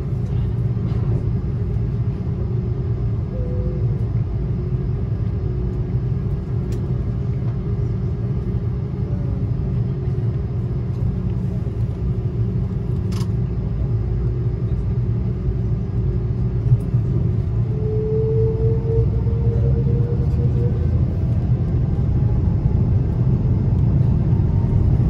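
Cabin noise of an Airbus A330-300 taxiing: a steady low rumble from its Rolls-Royce Trent 700 engines and the rolling airframe. In the second half a faint whine rises slowly in pitch as the overall noise grows a little louder.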